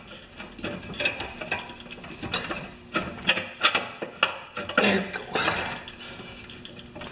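Irregular metallic clicks, taps and scrapes of a spring-hook tool and steel spring against the mower's transmission and frame, as the spring is worked over its hook under strain.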